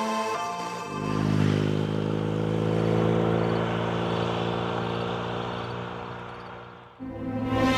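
BMW R1250R motorcycle's boxer-twin engine running as the bike rides away, its note sinking slightly and fading out over about six seconds.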